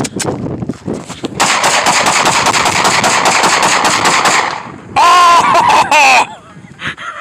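Rapid gunfire, a fast string of shots lasting about three seconds, followed by two loud yells.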